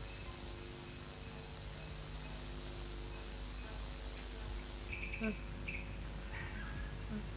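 Outdoor garden ambience of insects chirping steadily, with a few short bird chirps about five seconds in, over a low steady hum.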